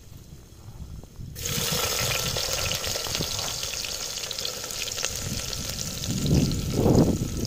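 Chopped onions dropped into hot oil in a clay pot, starting a steady crackling sizzle about a second and a half in. A low rumble of wind on the microphone comes near the end.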